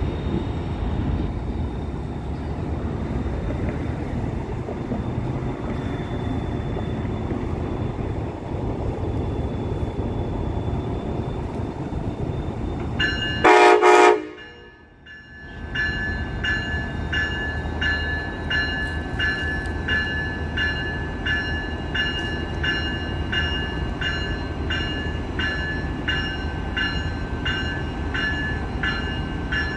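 Siemens Charger diesel locomotive running with a steady low rumble. About 13 seconds in it sounds one short, loud horn blast. A couple of seconds later its bell starts ringing steadily, a little under two strokes a second, as the train gets under way.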